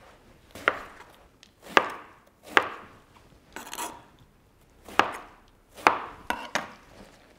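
Knife chopping eggplant into cubes on a plastic cutting board: about seven sharp knocks at uneven intervals as the blade cuts through and hits the board, with one longer rasp midway.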